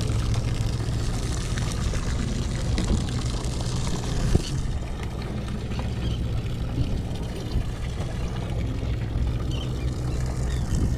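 Steady low drone of a fishing boat's engine under way, with a hiss of rushing water and wind that drops away about halfway through. A single knock sounds just before the hiss fades.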